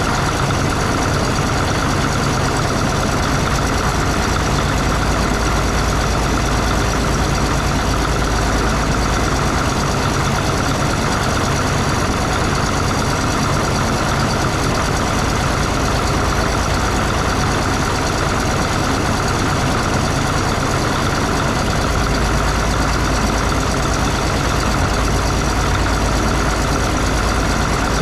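Cat D6 bulldozer's diesel engine idling steadily, with a constant low rumble.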